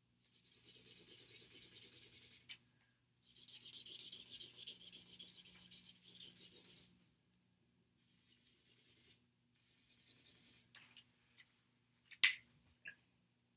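Felt-tip highlighter rubbed back and forth on paper in rapid scratchy strokes: one stretch of about two seconds, a short break, then a longer stretch of nearly four seconds, followed by a few fainter brief strokes. A single sharp click comes near the end.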